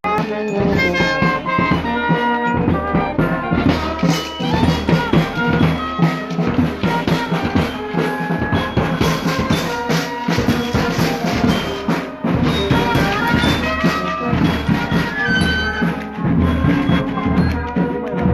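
Music played on brass horns over drums, with a steady beat.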